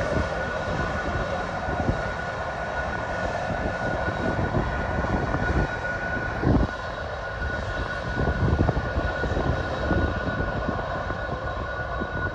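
Jet airliner's engines running: a broad, steady rumble with a constant high whine through it.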